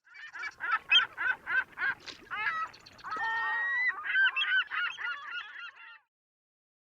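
Geese honking, a rapid series of calls at about three a second with one longer drawn-out call in the middle, cutting off abruptly about six seconds in.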